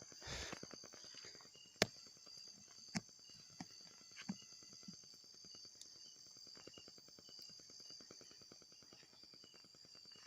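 Insects, crickets by the sound, chirping and buzzing steadily in a high, fast pulsing drone. A short rustle at the start and a few sharp clicks or knocks about two, three and four seconds in.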